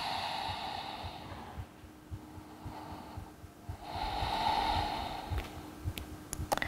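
A woman breathing slowly and audibly: one breath fading out about a second and a half in, and another long breath around the four-second mark.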